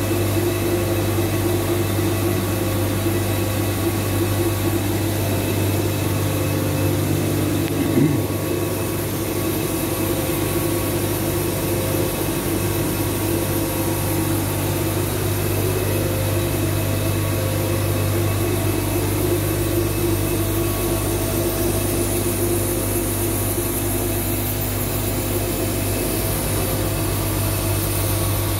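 Large CNC lathe running, a steady machine hum with several steady tones, and a short thud about eight seconds in.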